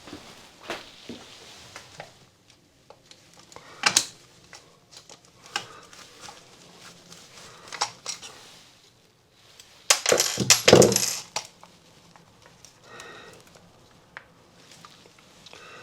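Light metallic clinks and knocks of small metal objects being handled, with single knocks about four and eight seconds in and a louder run of clattering about ten seconds in.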